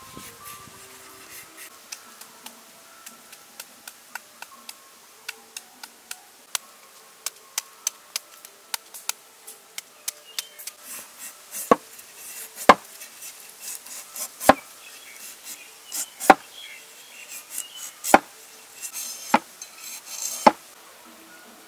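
A heavy cleaver blade shaving thin strips off a raw carrot: a run of short, crisp scraping strokes. From about halfway in, the strokes come louder and heavier, about one a second, with the blade knocking on the wooden chopping block.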